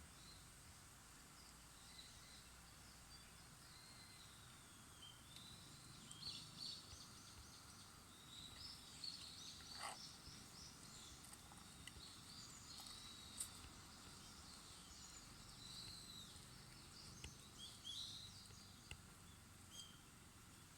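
Faint birdsong: scattered chirps and short trills from several birds, growing busier about a quarter of the way in, over a low steady outdoor hiss.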